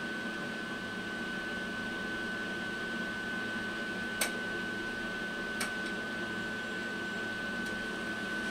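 Steady mechanical hum with a constant high whine running under it, broken by two short sharp clicks about four and five and a half seconds in.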